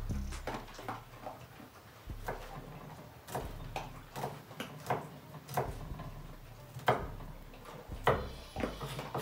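Kitchen knife chopping tomato on a mango-wood cutting board: irregular knocks of the blade against the board, about one or two a second.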